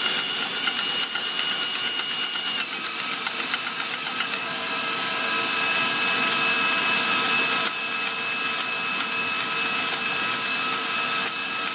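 KitchenAid Professional 5 Plus stand mixer running a wire whip through cream: a steady motor whine with the whisk churning in the steel bowl, the cream nearly whipped to peaks. The whine steps down slightly in pitch about two and a half seconds in and starts to wind down at the very end.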